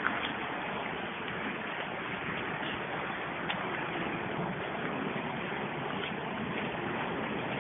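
Ocean surf breaking along a shore, a steady rushing wash, with a couple of faint clicks.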